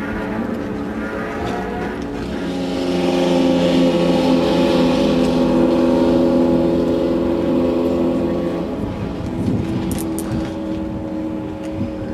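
Off-road race vehicle engine running at a steady pitch. It gets louder about two and a half seconds in and drops back about nine seconds in.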